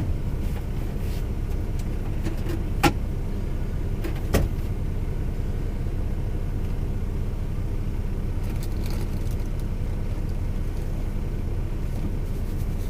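DAF XF truck's engine idling, a steady low drone heard inside the cab, with sharp clicks at the start, about three seconds in and about four and a half seconds in.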